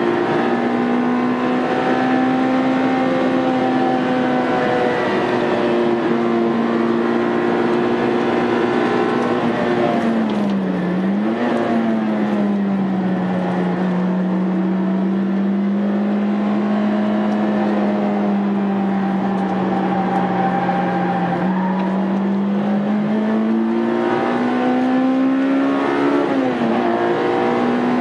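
Honda Integra Type R's four-cylinder engine running hard on a track lap, its note held high and steady. The pitch dips briefly about ten seconds in, settles a little lower, then rises and dips once more near the end.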